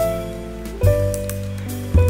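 Background music: a soft keyboard-style melody over held bass notes, with new notes struck about once a second.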